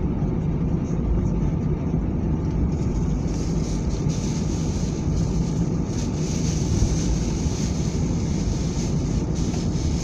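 Steady rumble of an airliner's engines and cabin air heard inside the cabin as it taxis after landing, with a high hiss that grows louder about three seconds in.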